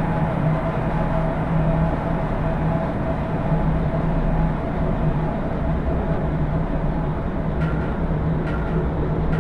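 Dark ambient drone: a dense, rumbling wash of noise with steady low hum tones running through it, and a few faint clicks near the end.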